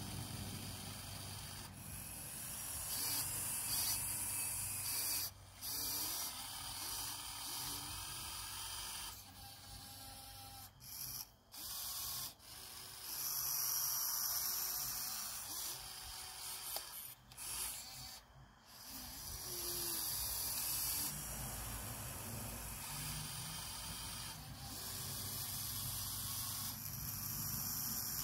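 Huina 1580 RC excavator's small electric motors and gearboxes whirring in stop-start runs as the boom, arm and metal bucket move, with gravel scraping and rattling as the bucket digs. The motors cut out briefly several times, about five seconds in, around eleven and twelve seconds, and near eighteen seconds.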